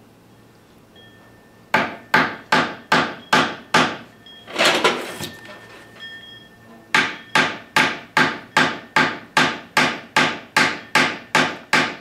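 Hammer striking silver wire on a steel bench block to flatten a pendant's bail wire: sharp, ringing metal-on-metal blows, about two and a half a second. The strikes stop for about three seconds in the middle, with a brief scuffing noise, then resume.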